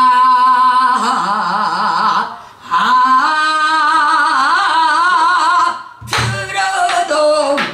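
Female pansori singer singing in two long, held phrases with a wide, wavering vibrato, a short break between them. A single low beat of the buk barrel drum falls about six seconds in.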